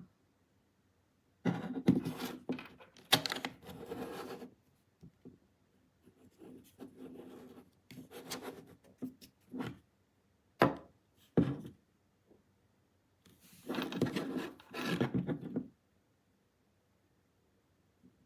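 Handling noise: irregular bursts of rubbing and scraping, with two sharp knocks near the middle, between stretches of silence.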